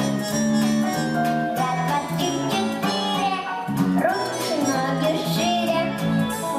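Bouncy dance backing track with a steady beat, with a voice singing over it from about four seconds in.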